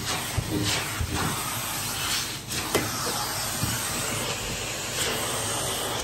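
Vacuum cleaner running with a crevice tool: a steady hiss of suction, with a few light knocks as the tool bumps along.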